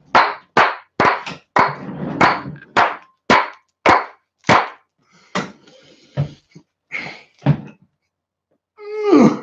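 A quick series of sharp knocks or smacks, about two a second, thinning out after halfway. Near the end comes a man's loud yell that slides steeply down in pitch.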